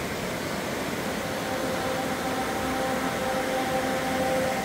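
Mountain stream rushing over rocks: a steady, full rush of water. Faint held tones come in about a second in.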